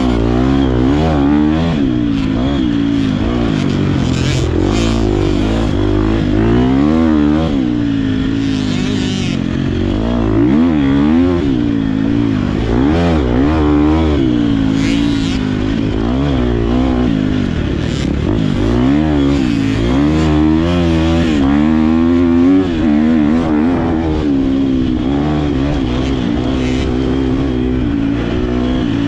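GasGas MC250 two-stroke motocross engine heard from on board, revving up and down over and over with throttle and gear changes while riding the sand track.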